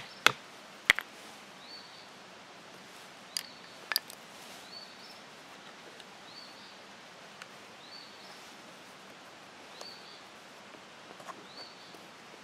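An awl tapped with a hammer to punch holes through leather lying on a log: sharp knocks, two near the start and two more about three and a half seconds in. A bird repeats a short high chirp about every second and a half.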